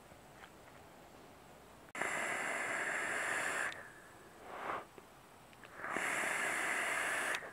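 Two long draws on a Kennedy-clone rebuildable dripping atomizer with a 0.8 kanthal coil. Each draw brings the coil sizzling and air hissing through the atomizer for about a second and a half. A short, softer breathy exhale of vapour follows the first draw.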